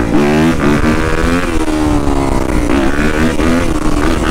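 Yamaha YZ250F dirt bike's single-cylinder four-stroke engine being revved on the move, its pitch climbing and dropping back several times as the throttle is worked.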